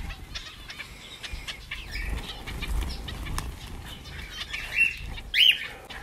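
Zebra finches fluttering around and landing on a hand, their wings whirring in quick flurries, with short chirping calls; two louder calls stand out near the end.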